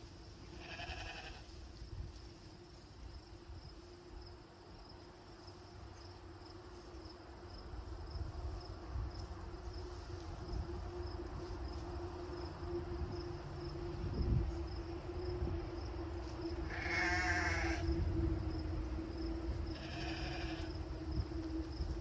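Livestock calling three times with wavering, quavering cries, the loudest about three quarters of the way through. Under the calls run a steady hum and faint, regular insect chirping.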